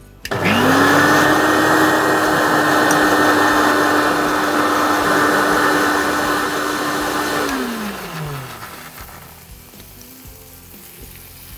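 Electric mixer grinder running: the motor spins up within a moment, runs at a steady high pitch for about seven seconds while grinding a poppy-seed and green-chilli paste, then is switched off and winds down with a falling pitch. After it stops, a faint sizzle of prawns frying in oil.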